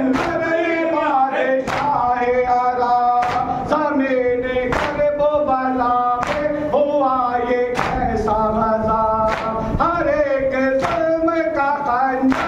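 Shia noha sung by a male reciter over a microphone, with a group of men chanting along. The crowd's hands strike their chests together in matam, a sharp slap about every one and a half seconds that keeps the beat.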